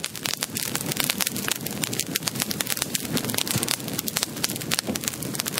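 Crackling fire sound effect: a steady hiss packed with many sharp, irregular pops.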